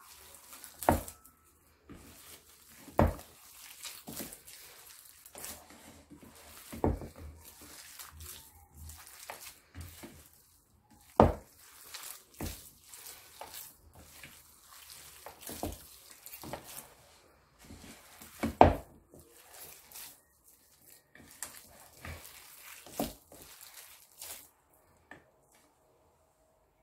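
Date paste being kneaded by hand in a ceramic bowl: irregular sticky squishing and tearing sounds, with several sharp knocks in between. The kneading goes quiet about two seconds before the end.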